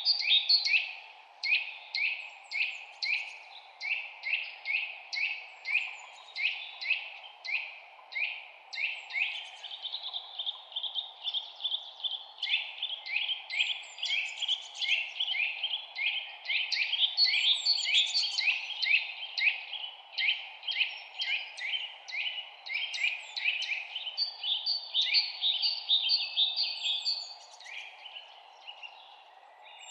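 Several songbirds singing in rapid, overlapping runs of short chirps, about two to three a second, over a steady low background hiss; the chirping thins out near the end.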